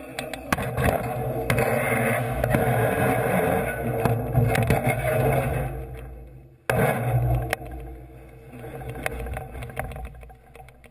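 Steady rolling rumble with rattles, scrapes and metal clanks as a galvanised steel roof truss is moved across a concrete floor. The noise dips about six seconds in, comes back abruptly, then continues more quietly.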